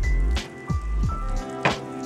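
Background music with a beat: deep kick drums that drop in pitch, sharp snare-like hits and held tones.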